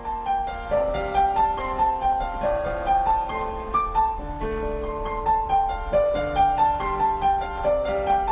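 Background music: a gentle piano melody of single held notes over soft sustained chords.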